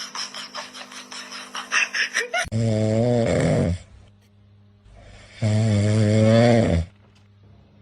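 Two long, loud snores about three seconds apart, low and wavering, typical of a pet snoring. Before them come a couple of seconds of rapid irregular clicking.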